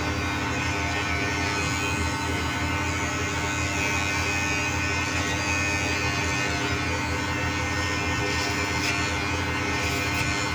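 Electric hair clipper buzzing steadily as it is run through a man's short hair over a comb, a steady even hum with no break.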